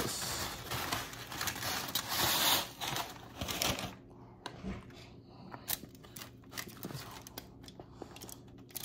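Paper takeout bag rustling and crinkling as tortilla chips are shaken out of it onto the table. The noise stops about four seconds in, followed by a few scattered light taps and clicks.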